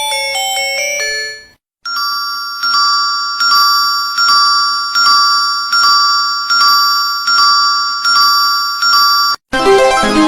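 Phone ringtones played one after another. A bell-like melody fades out about a second and a half in. After a short gap, a chime ringtone strikes the same notes over and over, about every two-thirds of a second, over a steady low hum. Near the end a different keyboard melody begins.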